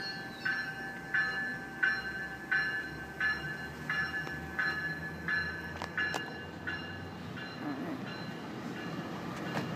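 GO Transit bi-level passenger cars rolling past with a low rumble of wheels on rail. A bell rings steadily, about one stroke every 0.7 seconds, and fades out about seven seconds in. A couple of sharp clicks come from the wheels.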